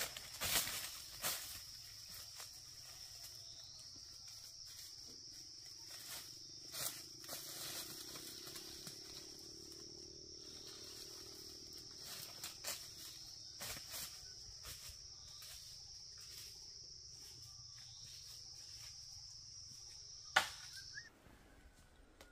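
Insects in the forest keeping up one steady high-pitched buzz that cuts off suddenly near the end, with scattered sharp knocks and clicks over it, the loudest of them just before the buzz stops.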